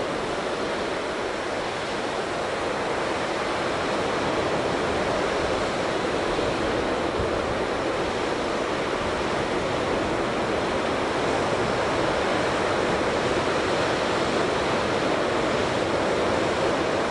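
Steady rushing noise of surf breaking on a sandy beach below, heard from a clifftop, mixed with wind buffeting the microphone.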